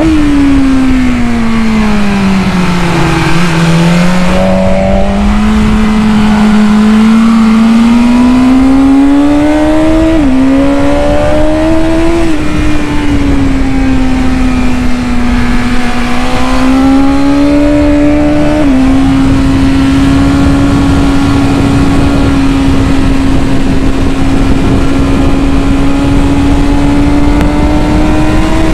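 2019 BMW S1000RR's inline-four engine, fitted with an Akrapovic exhaust, heard from onboard while riding on track. The engine note falls over the first few seconds as the bike slows for a corner, then climbs again with a few sudden steps at gear changes and holds nearly steady through the second half, over steady wind rush.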